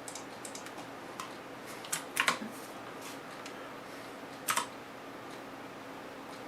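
Scattered light clicks and taps of a computer keyboard and mouse, with a few louder clicks about two seconds in and again a little past four seconds, over a faint steady hum.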